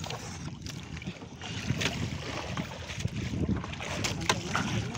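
Wind buffeting the microphone over water sloshing along an outrigger boat's hull, with a few sharp splashes as a hooked fish thrashes at the surface beside the boat.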